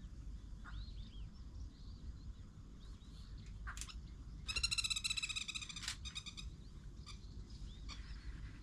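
Wild birds calling: scattered short chirps and, about halfway, a louder two-second run of rapid repeated notes, over a low steady rumble.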